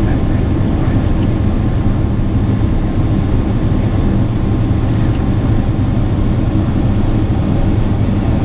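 Inside the cabin of a Boeing 777 on approach, a low, steady drone from its GE90 engines and the airflow, heard by the window seat.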